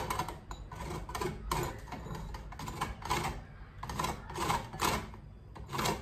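Lemon peel being zested on a large hand grater, in quick scraping strokes about two or three a second.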